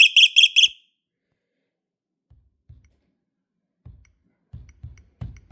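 Carbon monoxide detector sounding its alarm during a test: four quick, high-pitched beeps in a burst, the standard four-beep CO alarm pattern, then a pause. A few faint low thumps follow later.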